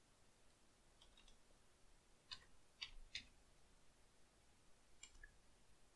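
Faint clicks of a computer keyboard and mouse over a quiet room: a few soft clicks about a second in, three clearer clicks close together near the middle, and one more near the end.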